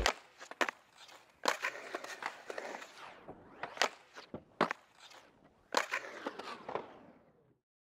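Skateboard in a concrete bowl: urethane wheels rolling and scraping over concrete, with a series of sharp clacks as the board's tail, nose and trucks hit the coping and land back in. The sound cuts off shortly before the end.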